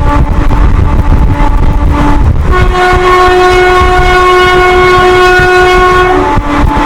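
WAP-4 electric locomotive's twin-tone horn blown without a break, switching notes. It holds the lower note for about the first two and a half seconds, then the higher note for about three and a half seconds, then drops back to the lower note near the end. Under it runs the steady rumble of the moving train.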